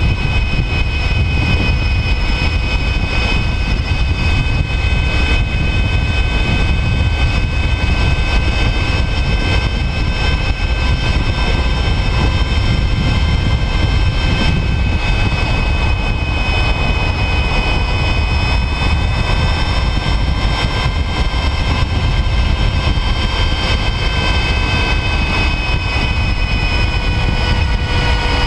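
Brammo Empulse R electric motorcycle at a steady highway cruise of about 60 mph in fourth gear: a steady high-pitched whine from the electric motor and drivetrain over a heavy wind rumble on the microphone.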